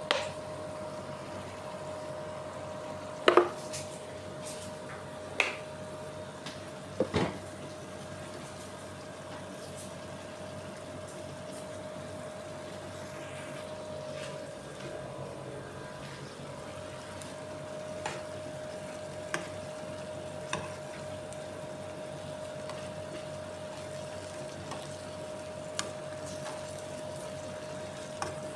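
Shrimp in butter sauce sizzling and bubbling in an aluminium frying pan over a gas burner, with a faint steady tone in the background. A few sharp metal clinks of a spoon against the pan cut through it, the loudest about three seconds in.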